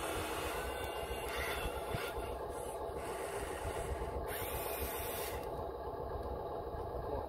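A toy-scale RC excavator's electric motors and gearboxes whirring steadily as the boom lifts and the bucket swings over a dump truck, with a faint shift in pitch about four seconds in.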